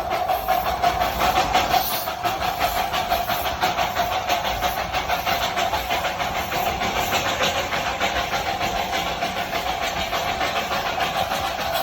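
Darjeeling Himalayan Railway toy train steam locomotive running, its exhaust chuffing in a fast, even rhythm over a steady hiss, with a steady tone held throughout.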